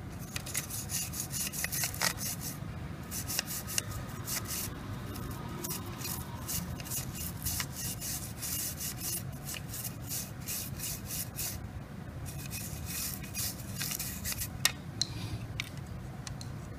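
Rapid scratchy rubbing strokes against a hard surface, in runs of a few seconds broken by short pauses, with a few sharper clicks.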